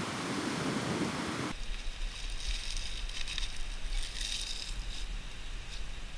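Wind buffeting the microphone for the first second and a half, then a sudden change to a steady hiss with a low wind rumble. Over that come bouts of dry rustling as handfuls of leaves are crumpled and pressed into a metal pot.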